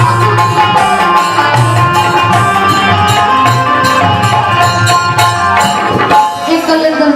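Instrumental music from a live Bhojpuri stage band: drums keep a quick, steady beat under a held melody line.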